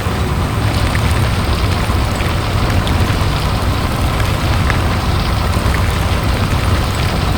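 Heavy construction-vehicle engine sound effect: a steady, loud, low rumble with a hissing, gritty noise over it and a few faint clicks.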